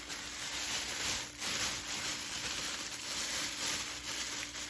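Packaging being handled and unwrapped: a steady crinkling rustle.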